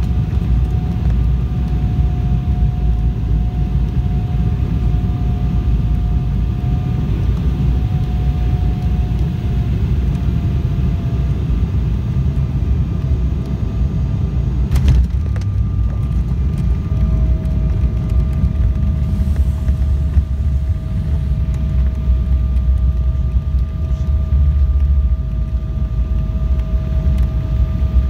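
Cabin noise of a jet airliner landing: steady engine rumble under a whine that slowly slides down in pitch. About halfway through a single sharp knock marks the touchdown, and after it the low rumble grows heavier as the plane rolls out on the runway.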